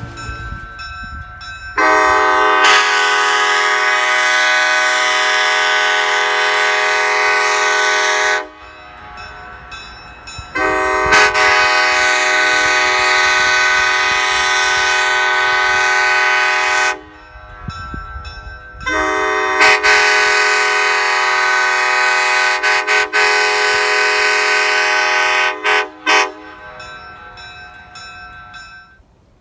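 Nathan Airchime K5LA hybrid train horn with bells 1, 2, 3A, 3A and 4A, an extra 3A in place of the 5, which gives it a slightly deeper chord. It is blown in three long blasts of about six to seven seconds each, and the third breaks up briefly just before it ends.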